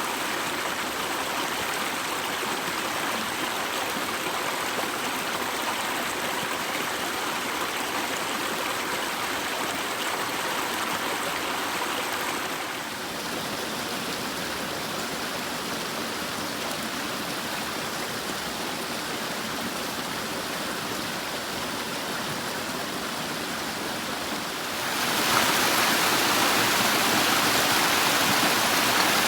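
Mountain river water rushing steadily. The sound shifts a little about halfway through and grows louder near the end.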